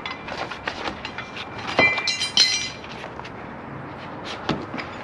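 Metal knocks and clicks from a slide-out awning's roller and bracket being worked loose, with a louder clang that rings briefly about two seconds in.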